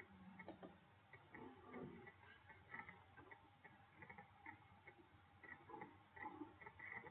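Near silence with faint, irregular ticking, a few ticks a second: a computer mouse's scroll wheel turning.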